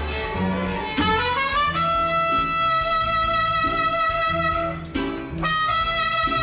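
Mariachi trumpet playing a melody: a quick rising run about a second in, a long held note, then shorter notes from about five seconds in, over the band's guitar and bass accompaniment.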